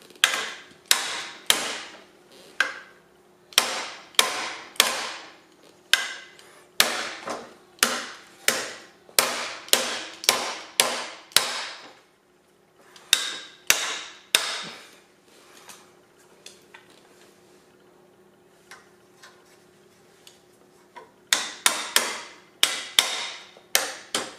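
Metal-on-metal tapping as locking pliers strike a socket to drive the new bottom bearing into a caster housing: sharp taps, each ringing briefly, about two a second. There is a lull of several seconds with only faint ticks before the tapping resumes, faster, near the end.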